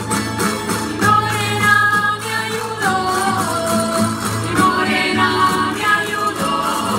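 Live Spanish folk music from a rondalla of guitars and other plucked strings, with percussion keeping the beat. A voice starts singing the melody about a second in.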